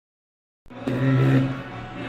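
Beatboxing starts abruptly after silence, about two-thirds of a second in: a low held vocal bass tone that breaks off and comes back in pulses.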